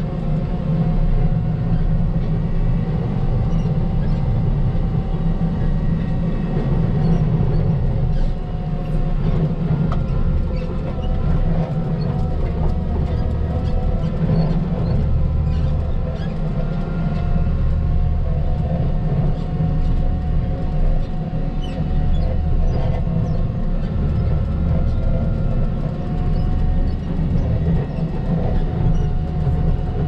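Volvo L60H wheel loader's diesel engine running steadily under load while it pushes snow with a V-plow: a continuous low rumble with a faint steady whine above it.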